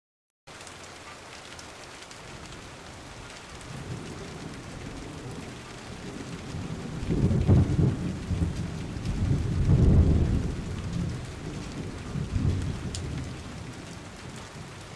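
Wind buffeting the microphone on an open boat: a steady rush with heavy low gusts about seven and ten seconds in.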